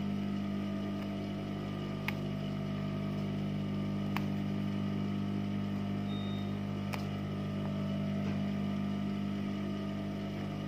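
Steady electric motor hum from an industrial sewing machine's motor running idle, with no stitching. A few faint sharp clicks come through it as thread is pulled out of the seam.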